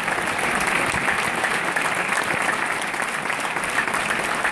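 A large concert audience applauding steadily, many hands clapping in a dense, unbroken roll.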